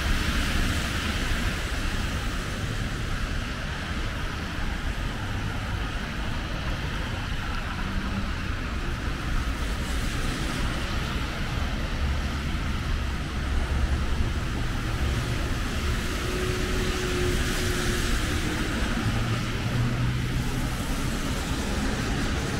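Steady street traffic on a wet road: cars passing with a continuous hiss of tyres on wet asphalt over a low engine rumble.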